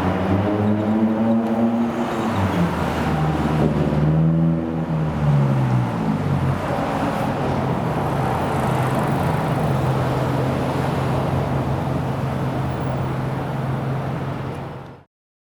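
Road traffic: a vehicle engine whose pitch rises and falls twice as it pulls away or passes, then a steady low engine hum. The sound cuts off abruptly near the end.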